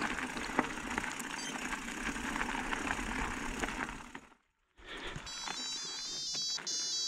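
Bike rolling over a gravel track, tyres crunching with small clicks and rattles; the sound cuts out for half a second. About five seconds in, a Garmin Edge 130 cycling GPS plays a quick tune of electronic beeps, its course-complete signal.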